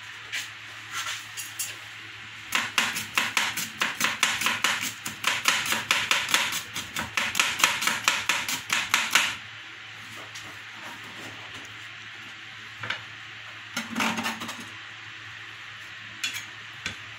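Kitchen knife slicing an onion on a plastic cutting board: a quick, steady run of chopping strikes, several a second, for about six seconds, then it stops and is followed by a few scattered taps.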